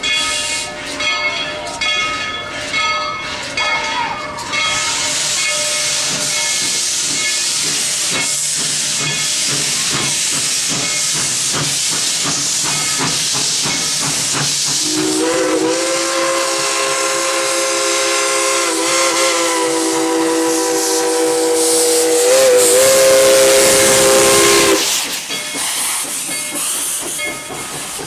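Baldwin 2-8-2 steam locomotive setting off: its bell rings steadily for the first few seconds, then steam hisses loudly from the open cylinder cocks. About fifteen seconds in, its multi-note chime steam whistle sounds one long blast of about ten seconds, the loudest sound here, and cuts off sharply while the hiss carries on.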